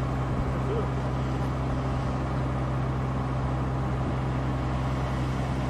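A motor running steadily: an even, unchanging low hum with no change in speed.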